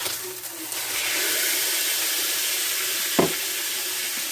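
Steak sizzling in a hot cast-iron skillet. The sizzle grows louder about a second in, as the steak is turned over onto its raw side. A single short knock comes about three seconds in.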